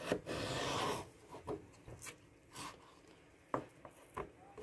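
Knife slicing a raw potato into strips on a wooden cutting board: a drawn-out scraping cut in the first second, then a series of short knocks as the blade meets the board.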